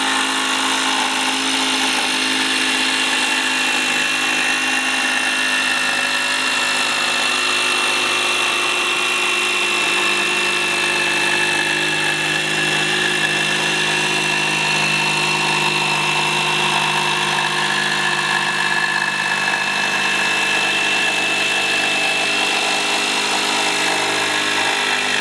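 Ridgid Octane 18V brushless cordless jigsaw running at a steady speed as its blade cuts through a plywood sheet, a steady high whine over the blade's rattle. It stops at the end as the cut finishes.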